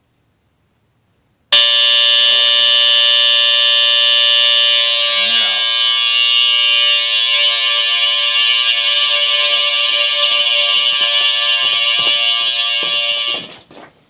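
Smoke detector horn sounding a loud, steady, unbroken shrill tone, set off by smoke held up to it from a can. It starts about a second and a half in and stops suddenly near the end, once the smoke clears.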